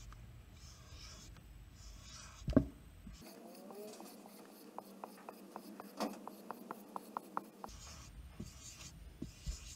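Whiteboard marker drawing circles on a whiteboard: a run of short, scratchy felt-tip strokes, with a single sharp knock about two and a half seconds in. In the middle comes a quick run of ticks, about five a second.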